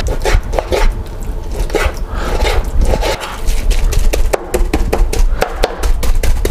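Chef's knife mincing raw chicken fillet on a wooden cutting board: quick, irregular chops of the blade against the board.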